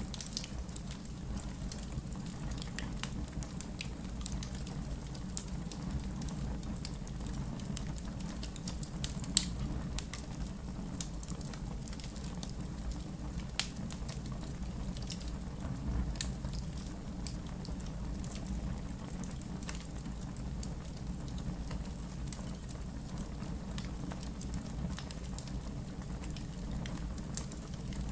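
Wood fire burning in a fireplace: a steady low rumble with scattered crackles, and one sharper pop about nine seconds in.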